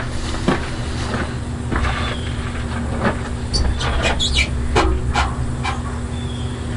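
Chevrolet C60 truck's engine running steadily on its freshly rebuilt carburetor, a constant low hum with scattered sharp clicks over it.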